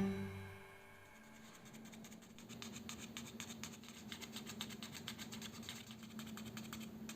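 Background music fading out in the first second, then a faint steady hum with a fine, even rattle, like a small motor running.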